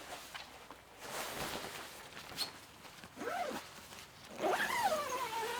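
Zipper on the awning room's fabric side wall being pulled along in a few scratchy strokes, followed by short wavering voice-like sounds in the second half.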